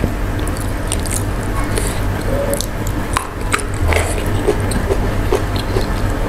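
Close-miked chewing and biting of raw vegetables and sambal, with many short crisp clicks and wet mouth sounds.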